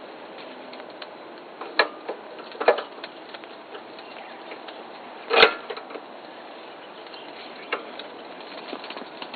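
A few sharp clicks and knocks from the gear shift lever of a Kubota B5000 tractor as it is handled and fitted by hand, the loudest about five and a half seconds in, over a steady faint hiss.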